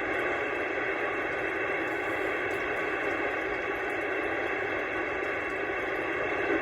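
Steady static hiss from an Anytone AT-6666 CB radio's speaker on an open channel, with no station readable in it.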